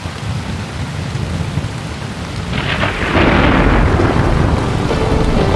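Steady rain with rumbling thunder; a heavier thunder roll swells up about halfway through and stays loud.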